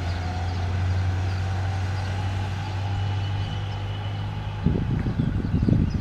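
A vehicle running with a steady low hum. Near the end, about a second of louder, rough low rumbling.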